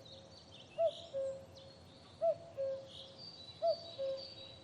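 Common cuckoo calling its two-note "cuck-oo" three times, a short higher note then a longer lower one about every second and a half, with small songbirds twittering faintly higher up.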